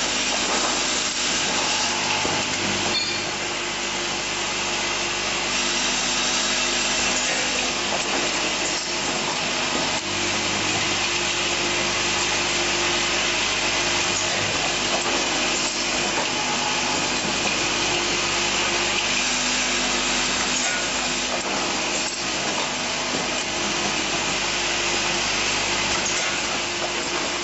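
Automatic rotary-table assembly and riveting machine running: a steady, dense mechanical noise with a low hum and scattered faint clicks.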